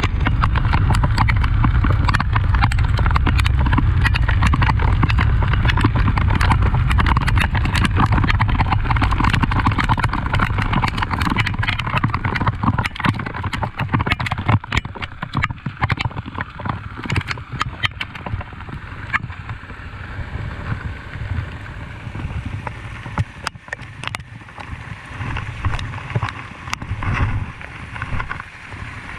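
Heavy rain, with a dense, irregular patter of drops striking the phone recording it. A loud low rumble runs under it for the first dozen seconds or so, then eases off.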